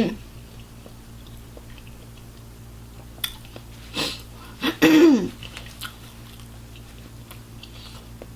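Close-miked chewing of a mouthful of hard-boiled egg with dry yolk, with small wet mouth clicks throughout. A short vocal sound about five seconds in.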